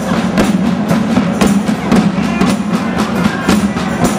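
Street band music led by drums, with rapid, closely spaced drum strokes in a driving rhythm.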